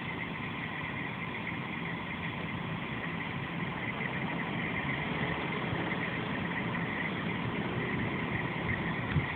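Truck engines idling at a truck stop: a steady low engine hum with an even high hum above it, unchanging throughout.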